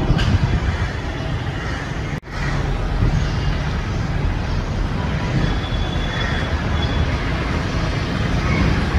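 Steady city street ambience: a low rumble of road traffic, with a brief cut-out about two seconds in.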